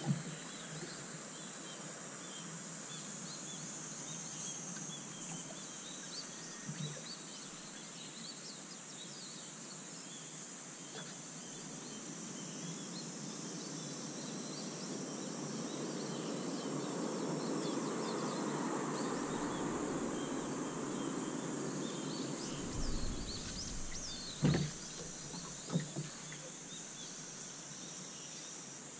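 Outdoor ambience of birds chirping over a steady high insect drone. A broad rushing sound swells and fades through the middle, and a few sharp knocks come near the end.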